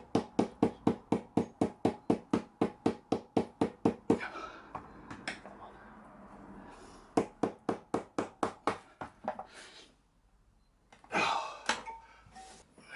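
A rapid run of sharp knocks, about five a second, as a stubborn old tyre is worked off a motorbike wheel rim by hand. It stops after about four seconds, then comes back for about two seconds halfway through.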